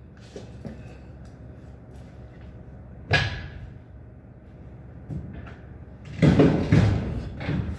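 A sharp knock about three seconds in and a smaller one a couple of seconds later, then a run of heavier knocks and clatter near the end, like heavy metal parts being handled in a workshop.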